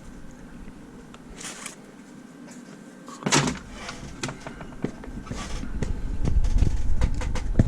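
Cardboard box being handled and opened one-handed: faint scraping, a sharp knock a little over three seconds in, then louder rubbing and bumping that builds toward the end.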